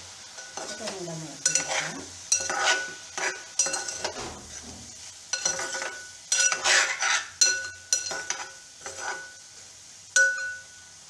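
Steel spoon stirring cooked vegetables in a metal cooking pot: soft wet scraping, with about a dozen irregular clinks of the spoon against the pot, each ringing briefly.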